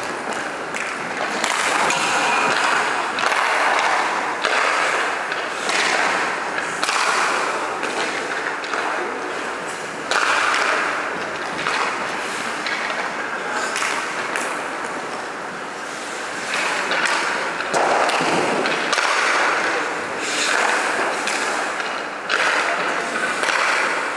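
Hockey skate blades scraping and carving across rink ice in repeated swells, each rising and fading within a second or two, with sharp clicks and knocks of sticks and pucks throughout.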